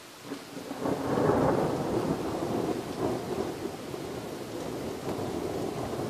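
A roll of thunder: the rumble builds from about half a second in, is loudest just after a second, then slowly fades without dying out.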